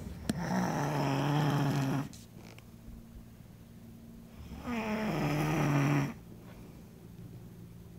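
A man snoring in his sleep: two loud snores about four seconds apart, each lasting about a second and a half, with quieter breathing between them.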